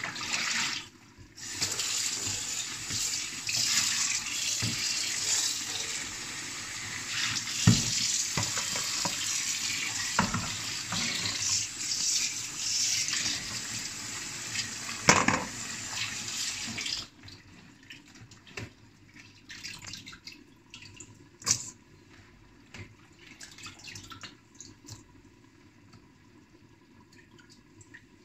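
Kitchen tap water running into the sink over boiled tripe in a stainless-steel colander, being rinsed, for about fifteen seconds before it cuts off suddenly. Then come a few light clicks and one sharp knock of the colander and bowls being handled.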